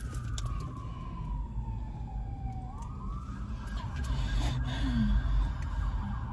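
Emergency vehicle siren: a wail that falls slowly in pitch, sweeps back up about three seconds in, then switches to a fast warbling yelp, over a low rumble.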